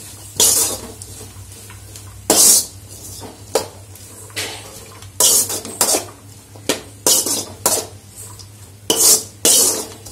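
Metal slotted spatula scraping and tossing chopped vegetables around a large aluminium kadai, in short irregular strokes roughly once a second, over a low steady hum.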